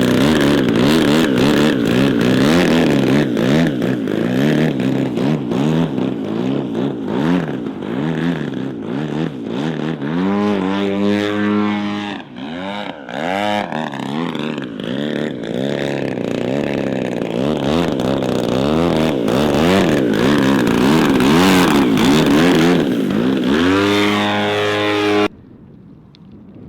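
Engine of a large radio-controlled propeller model plane in flight, its pitch swinging up and down as it manoeuvres and passes, rising steeply twice, with wind buffeting the microphone. It cuts off suddenly near the end.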